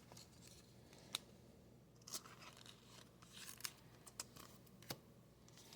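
Faint, scattered clicks and short rustles of trading cards and a foil pack wrapper being handled, close to near silence.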